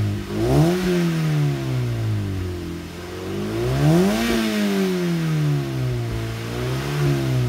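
A Mazda MX-5 NC's four-cylinder engine revved at standstill through a Cobalt Performance aftermarket back box. There is a short blip about half a second in, then a higher rev about four seconds in that falls slowly back to idle. The note is stock-like but a little deeper and fruitier.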